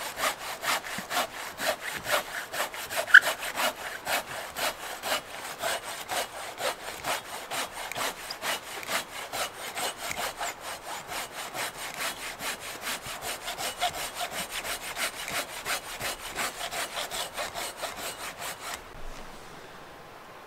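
Silky Big Boy folding pull saw with a 14-inch straight blade and medium teeth cutting through a log in quick, even strokes, about three a second. The sawing stops about 19 seconds in, when the round is cut through.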